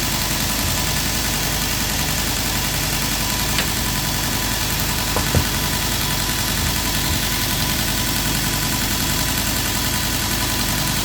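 Bench belt grinder running steadily while a lopper blade is held to the belt to knock the burr off the freshly sharpened edge. Two brief ticks come through, about three and a half and five seconds in.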